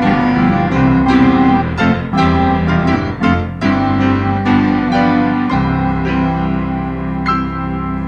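Piano and organ playing Christmas music together: struck piano notes and chords over held organ tones, settling into a long sustained chord about two-thirds of the way through.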